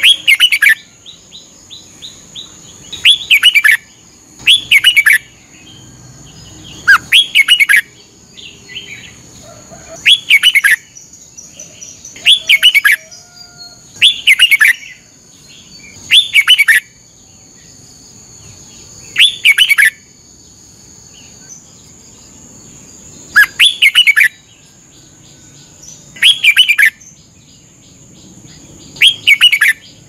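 Red-whiskered bulbul singing: short, loud warbled phrases repeated about every two to three seconds, with a few brief pauses between them.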